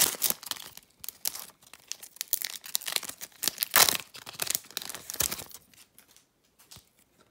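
Foil-lined trading card pack wrapper being torn open and crinkled by hand, a run of sharp rips and crackles that dies away about six seconds in.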